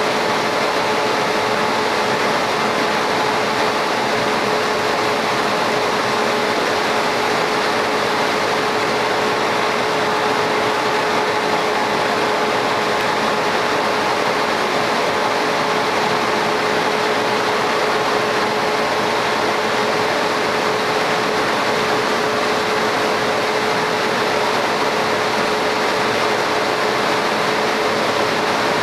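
Laser cutter running while it engraves a tile: an even fan-like hiss with a constant hum underneath, unchanging throughout.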